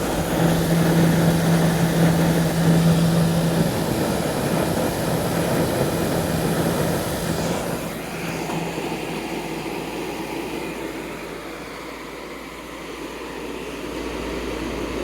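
Hampton Bay 10,000 BTU window air conditioner running, heard at its outdoor condenser side: a steady rush of condenser fan air over a low hum. The sound is louder for the first half and eases off a little after about eight seconds. The unit is running hot with weak airflow, which the owner puts down to a plugged, dirty condenser coil.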